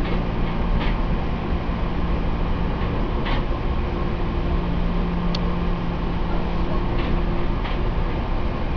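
Seibu 2000-series electric train car (MoHa 2197, with a Mitsubishi GTO-thyristor VVVF inverter drive) running at steady speed, heard from inside the passenger car: a steady rumble and low hum, with a few faint clicks from the wheels on the rails.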